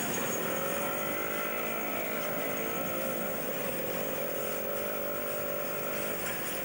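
Train of ballast hopper wagons rolling past, with a steady squealing tone over the rumble of the wheels that stops about six seconds in.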